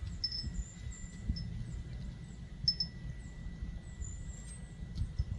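Small birds chirping: many short, high, quick chirps and falling notes from several birds calling over one another, above a low steady rumble.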